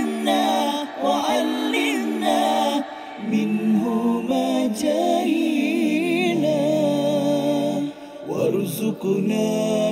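Vocal music: several voices singing a cappella in harmony, a wavering, ornamented melody over a held low note, with a short break near the end.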